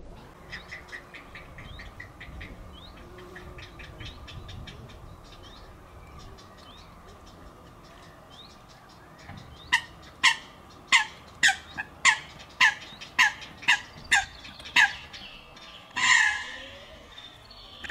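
Grey heron chicks begging in the nest: a fast run of faint clicking calls, then about ten louder, sharp calls roughly two a second. Near the end comes a harsher, longer squawk.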